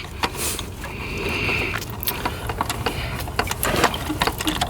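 Hand tools working the last fastener out of a plastic thermostat housing: a run of light metallic clicks and taps, with a short rasp about a second in.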